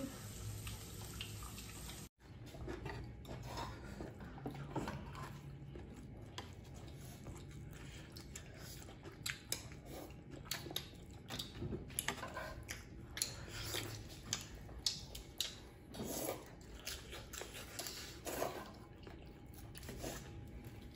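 Quiet eating at the table: scattered clicks and taps of chopsticks against metal bowls and an electric griddle, over a faint crackle of seafood and meat cooking on the griddle.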